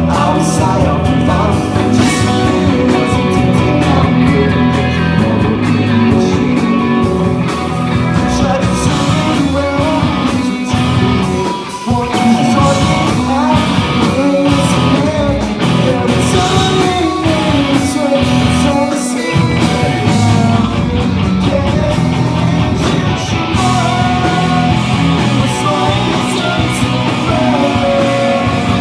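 A pop-punk band playing live: loud electric guitars, bass and drums with a singer. The level stays steady apart from a brief dip about twelve seconds in.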